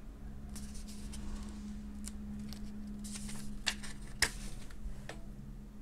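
Pages of a small paper instruction booklet being leafed through: soft rustling with two sharper paper flicks near the middle, over a faint steady low hum.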